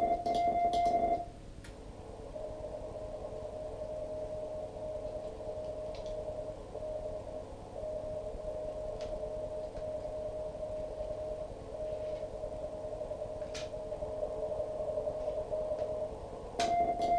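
Morse code (CW) tones from an amateur radio transceiver. For about the first second a loud steady beep of the operator's own keyed sending, then a fainter broken Morse signal from the other station in a narrow band of receiver hiss, and near the end his loud keyed tone again.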